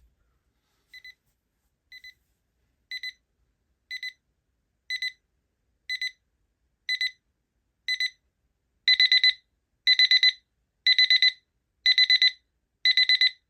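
Peakeep digital alarm clock's alarm going off: high electronic beeps in pairs once a second, growing louder, then about nine seconds in changing to louder groups of four quick beeps each second.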